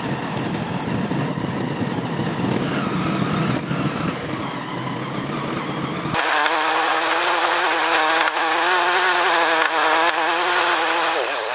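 Honda Verza motorcycle's single-cylinder engine running while being ridden. About six seconds in, the sound changes abruptly to a higher, wavering engine note.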